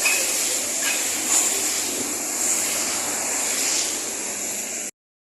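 Traffic passing on a rain-soaked highway: a steady hiss of tyres on the wet road mixed with engine noise, cutting off abruptly near the end.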